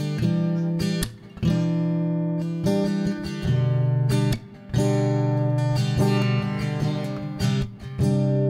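Background music: an acoustic guitar strumming chords, with brief breaks about every three seconds.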